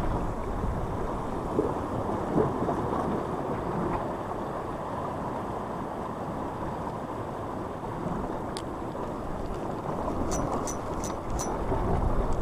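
Wind buffeting the microphone over sea surf washing against rocks. Near the end comes a run of light high clicks, about three a second, as the spinning reel is cranked to retrieve the lure.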